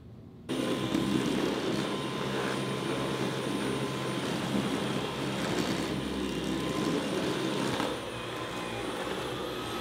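Cordless stick vacuum switched on about half a second in, then running steadily with a constant motor whine as it is pushed over the floor and rug. It gets a little quieter about eight seconds in.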